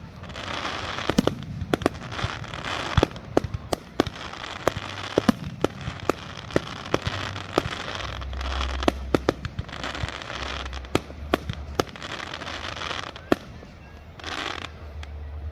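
Aerial fireworks going off: many sharp bangs in quick, irregular succession, with stretches of crackling between them.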